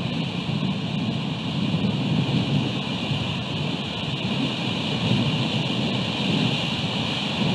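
Steady rain and wind noise on an outdoor camera microphone: a low rumble under an even hiss.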